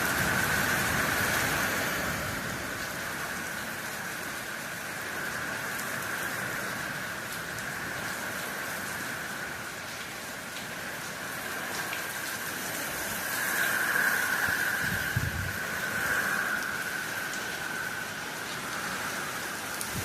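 Steady rain falling on a roof, an even hiss of many drops that swells and eases. About three-quarters of the way through there is a brief low rumble.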